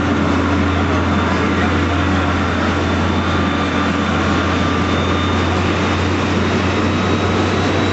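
A heavy engine running steadily at a constant speed: a loud, unchanging low drone with a hum underneath and a wash of noise over it.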